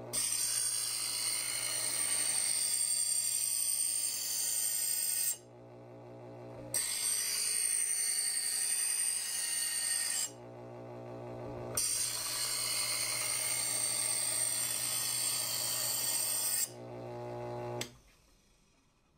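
Chef's Choice 250 electric knife sharpener's motor running with a steady hum, and a loud grinding hiss each time a cleaver blade is pulled slowly through the stage-two diamond abrasive discs: three pulls of about four to five seconds, with the motor humming alone in between. The motor stops near the end.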